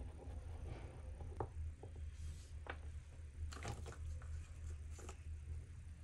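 Faint fingertip rubbing on paper, then a few small clicks and rattles of oil pastel sticks knocking together in their box as one is picked out, over a steady low hum.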